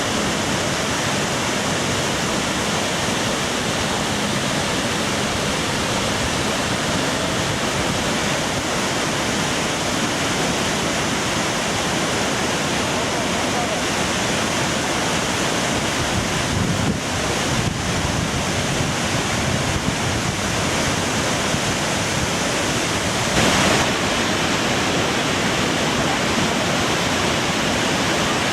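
Skógafoss, a 62 m (200 ft) waterfall, pouring down: a loud, steady rushing of falling water.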